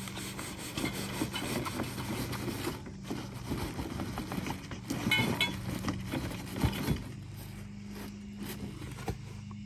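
Cardboard box scraping and sliding across a plastic folding table as a wrapped cargo rack is pulled out of it, with rustling of paper and plastic wrapping and a few knocks; it goes quieter after about seven seconds. A steady low hum runs underneath.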